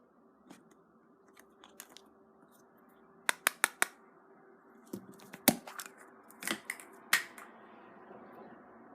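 Sharp clicks and snaps of a toy surprise egg being handled and opened: a quick run of four or five clicks about three seconds in, then scattered single clicks over the next few seconds, above a faint steady hum.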